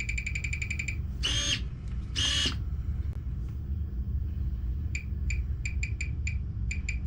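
RC truck's newly fitted steering servo whirring twice in quick succession as it swings the front wheels from lock to lock, over a steady low hum. A fast ticking buzz runs in the first second, and a scattered run of short high ticks comes near the end.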